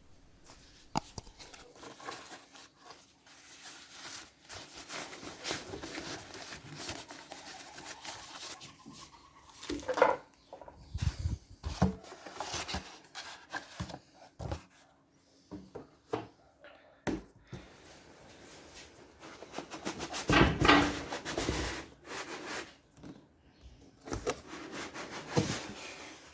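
Packaging being handled during an unboxing: irregular rubbing and rustling with scattered knocks and clatters, with two louder bursts of handling about ten seconds in and again near twenty seconds.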